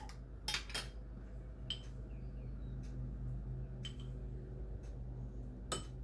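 A few light, scattered clicks and taps as a small glass spice jar is opened and a metal measuring spoon scoops and taps, the sharpest click near the end, over a steady low hum.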